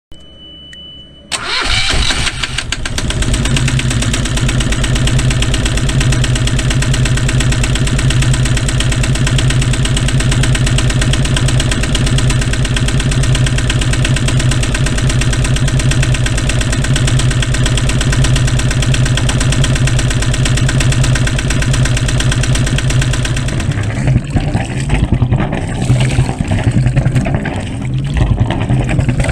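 A boat's inboard engine cranks and starts after a steady high beep, then idles steadily. About 24 seconds in, the sound turns uneven and splashy, like the idling engine heard at its exhaust outlet with water splashing out.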